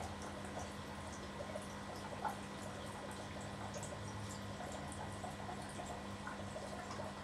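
Small drips and trickling water in a turtle tank, with scattered light ticks and one sharper tick a little over two seconds in, over a steady low hum.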